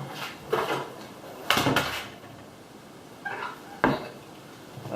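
A few separate clinks and knocks of hard objects being handled and set down, like tools or metal hardware on a bench. The loudest come about a second and a half in, and there is a sharp single knock near the end.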